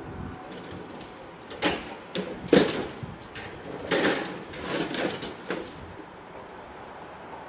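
Waste boards and panels being dumped into the metal cage of a tipper truck, landing in a string of bangs and clatters. The loudest bang comes about two and a half seconds in, with another bunch around four to five and a half seconds.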